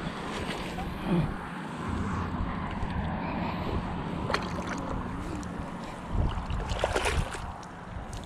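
Wind buffeting the microphone over water lapping against a boat, with a faint steady hum and a few sharp knocks, about four, seven and eight seconds in.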